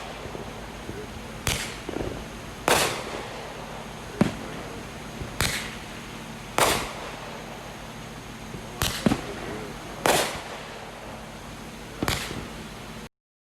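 Backyard fireworks going off: a string of about ten sharp bangs one to two seconds apart, each with a short echoing tail, over a steady low hum. The sound cuts off abruptly near the end.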